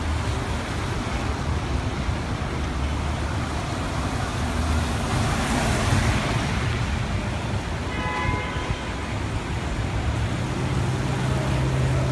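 City street traffic with tyres hissing on wet pavement: a steady wash of passing cars and engines. A short horn toot sounds about eight seconds in, and a deeper engine hum swells near the end.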